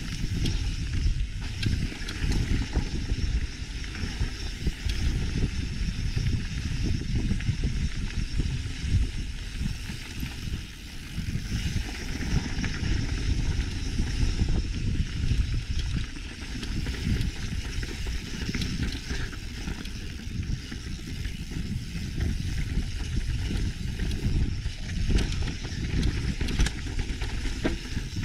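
Mountain bike rolling downhill over loose gravel and rock: a continuous rumble of knobby tyres on the trail with a steady stream of small knocks and rattles from the bike as it goes over the stones.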